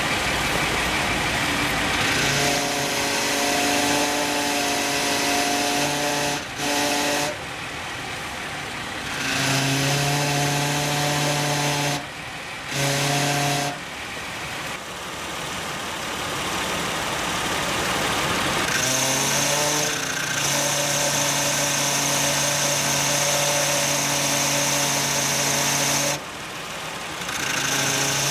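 Failing power steering pump on a 2009 Nissan Elgrand E51 whining over the running engine. The whine cuts in and out several times in stretches of a few seconds. The pump has failed, leaving the steering heavy, and fresh power steering fluid did not cure the noise.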